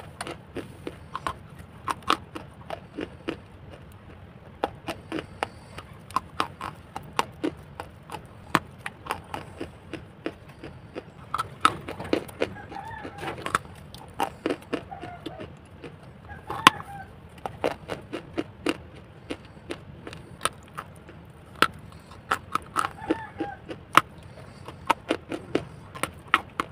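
Close-up crunching and chewing of dry white edible clay (Hyderabadi khadi), with many sharp, irregular crunches several times a second.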